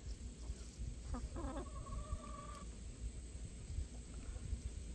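A hen's drawn-out call about a second in: a short note that bends in pitch, then a steady held tone lasting under a second.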